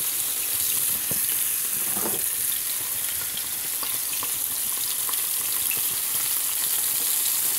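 Sea bass pieces frying in hot oil in a pan: a steady high sizzle with scattered small pops and crackles.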